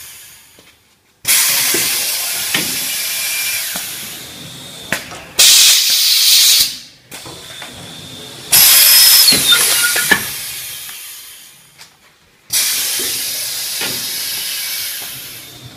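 Automatic baking-cup forming machine running, with repeated loud bursts of air hiss that each start suddenly and fade out over a few seconds, and a few faint mechanical clicks between them.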